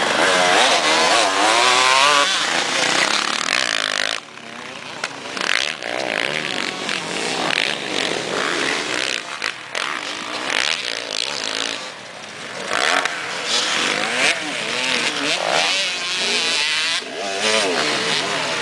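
KTM 250 two-stroke dirt bike engines revving up and down through the gears. The engine is loud and close at first, drops sharply about four seconds in, and then runs further off with its revs rising and falling.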